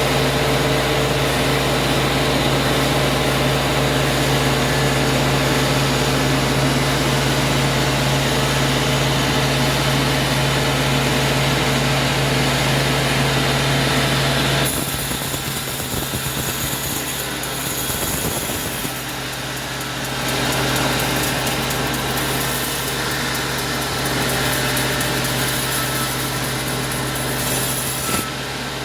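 Sawmill machinery running steadily with a strong low hum. About halfway through the sound changes abruptly to a quieter, hissier machine noise without the hum, then the humming machine returns at the very end.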